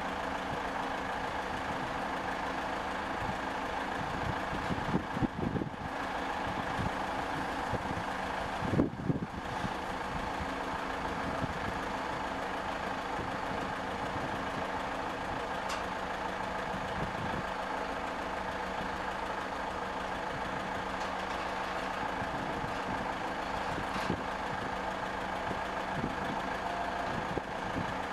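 Steady mechanical hum like an engine running, with a couple of brief louder rumbles about five and nine seconds in.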